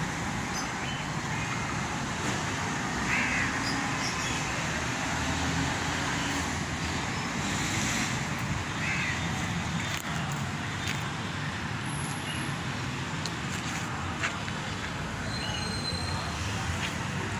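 Steady background road traffic noise with no single event standing out.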